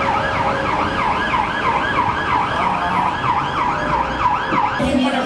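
Emergency vehicle siren on a fast yelp, its pitch sweeping up and down about three times a second, over street traffic; it cuts off abruptly near the end.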